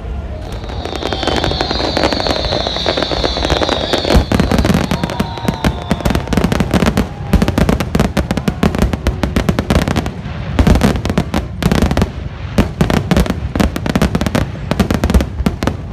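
A large fireworks display: rapid, overlapping bangs and crackles of many shells bursting at once, growing denser and louder after the first few seconds. A high wavering whistle sounds over the first few seconds.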